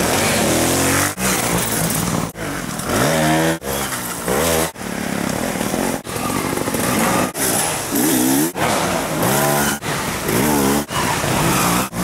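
Dirt bike engines revving hard, the engine note sweeping up and down steeply with the throttle. The sound comes in short stretches that cut off abruptly about every second.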